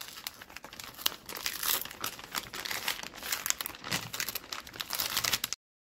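Soft plastic film of a wet-wipes pack crinkling and crackling as its plastic flip-top lid is peeled off the adhesive. The sound cuts off suddenly near the end.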